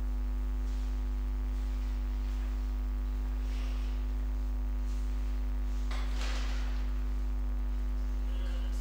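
Steady electrical mains hum from the recording setup: a low drone with a steady higher tone and many even overtones above it. A brief faint noise comes about six seconds in.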